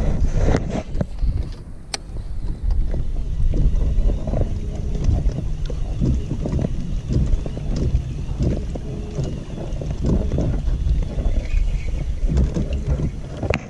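Uneven low rumble of wind buffeting the microphone aboard a small aluminium fishing boat.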